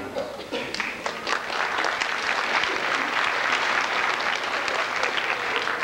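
Audience applause: scattered claps at first, thickening into steady clapping about two seconds in.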